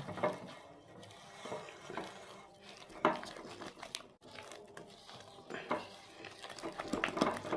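A hand-held utensil stirring and scraping a soft creamed butter-and-sugar mixture in a glass bowl, with scattered light knocks against the bowl and one sharper knock about three seconds in.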